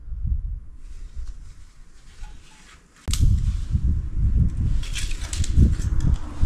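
Strong wind buffeting the microphone in gusts, a low rumbling blast that eases for a moment and then hits harder about three seconds in, with some rustling and clicking on top.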